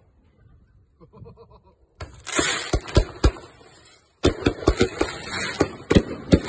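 Wolff 'The Throne' firework cake firing. After about two seconds of near quiet, a hiss with sharp cracks starts, and from about four seconds in there is a fast run of bangs and crackles.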